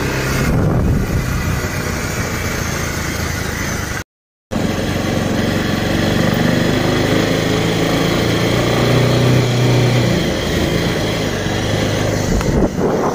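Bajaj Pulsar 220F motorcycle's single-cylinder four-stroke engine running steadily on the move, with wind rushing over the microphone. The sound drops out completely for about half a second about four seconds in.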